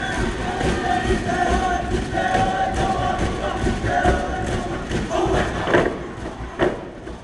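Group of boys singing a Tokelauan song in unison over a drum beat, with crowd noise behind. The sung notes stop after about four seconds, followed by a couple of loud sharp hits.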